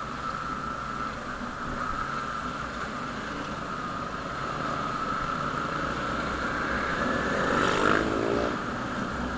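Motorcycle engine running at cruising speed, with a steady whine that climbs slightly, and road and wind noise. About eight seconds in, another motorcycle passes close by, and its rising engine note is the loudest moment.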